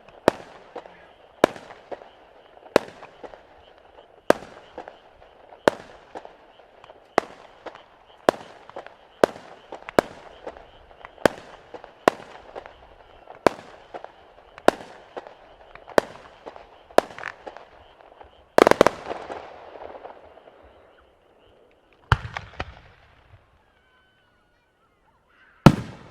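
Fireworks shells bursting in quick succession, a sharp bang about once a second. Near the end of the run comes a bigger burst with a crackling tail, then a pause, another crackling burst, and one last loud bang.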